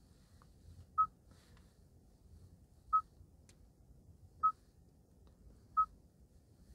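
Kia Sportage infotainment touchscreen giving a short single-pitch confirmation beep at each touch: four beeps, one to two seconds apart.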